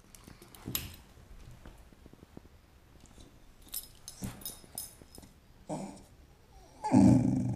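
Border terrier growling low at a kitten, breaking in suddenly about seven seconds in after a quiet stretch with a few faint clicks.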